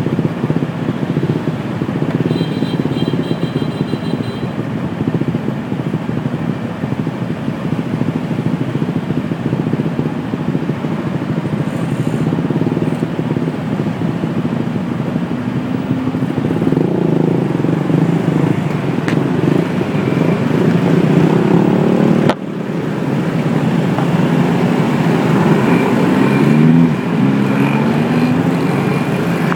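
Motorbike and car engines idling in stopped city traffic. Near the end, engines rev with rising pitch as the bikes pull away.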